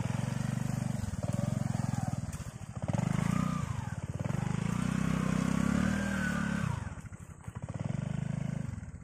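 Small underbone motorcycle engine revving hard in repeated surges, pitch rising and falling, as the bike is forced through deep peat mud with the rider paddling with his feet. The revs drop away about seven seconds in, then rise again briefly.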